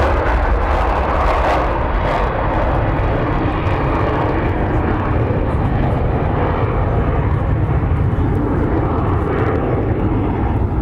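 McDonnell Douglas RF-4 Phantom II's twin General Electric J79 turbojets running at full power as the jet climbs away after take-off: a loud, continuous jet roar with heavy low rumble, its higher hiss thinning out after about two seconds as the aircraft recedes.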